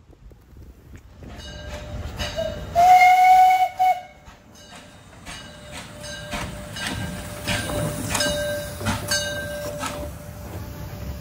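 Steam locomotive giving one steady whistle blast of about a second, a few seconds in. Around it the train runs with a regular beat of knocks, about two a second.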